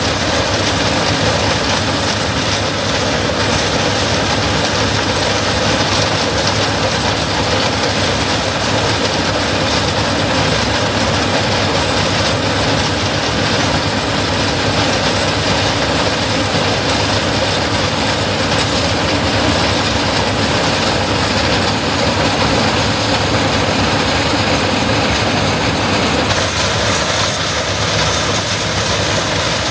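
Heavy corn-harvest machinery running steadily in the field, a loud, unbroken mechanical drone.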